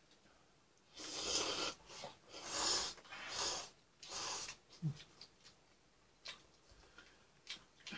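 A person eating hot ramen noodles makes four loud, airy mouth sounds in a row, each lasting under a second, then a few light clicks near the end.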